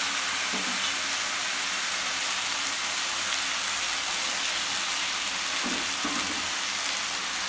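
Pieces of pork sizzling steadily in a frying pan over a gas flame as they are dry-fried.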